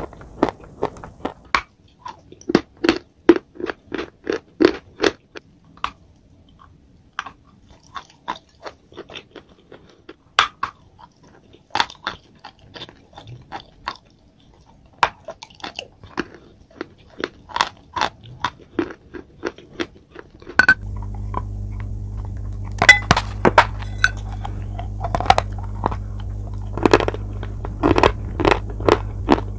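Close-miked biting and chewing of chalk and clay bars: a rapid run of short, sharp crunches. About two-thirds of the way in, a steady low hum starts under the crunching.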